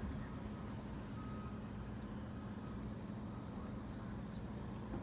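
A vehicle engine idling steadily, a constant low hum, with two faint short beeps about a second in and again a little later.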